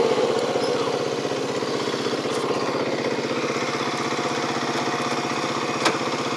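Four-wheeler ATV engine running steadily, its firing pulses even. A single brief knock comes near the end.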